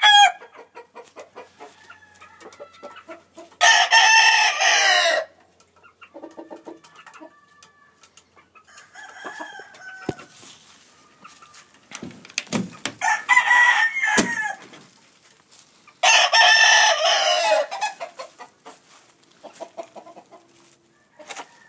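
Gamecock roosters crowing: three loud crows, each about a second and a half long, about four, thirteen and sixteen seconds in, with softer clucks and short calls between them.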